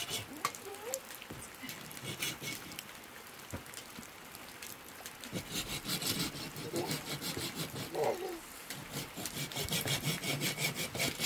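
Rhythmic rasping strokes, about four a second, which fade in the middle and come back strongly near the end.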